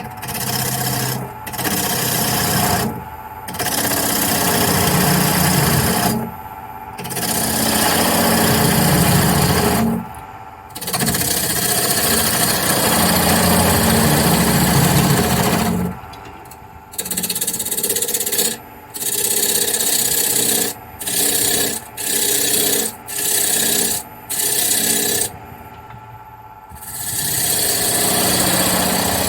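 A drill bit boring into the centre of a walnut blank spinning on a wood lathe, cutting in repeated pushes separated by short pauses as the bit is withdrawn, over the steady hum of the running lathe. The pushes are long in the first half and become shorter and quicker after about seventeen seconds.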